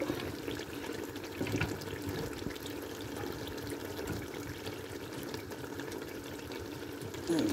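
A steady watery hiss with faint scattered pops, from liquid in the curry pot or water being added.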